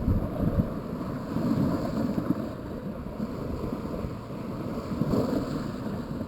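Steady wind noise buffeting the microphone over the wash of waves at the water's edge.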